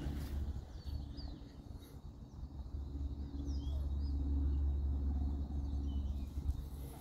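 Outdoor ambience: a steady low rumble, with small birds chirping faintly now and then.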